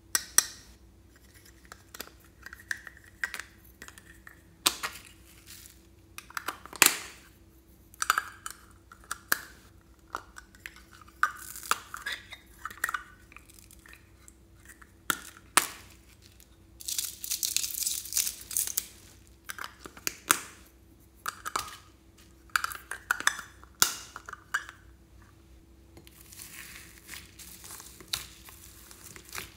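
Plastic slime tubs knocked, clicked and handled as a lid is worked open, with a rustling, hissing burst of about two seconds midway. Near the end comes a soft crackling as hands press into a bowl of foam beads.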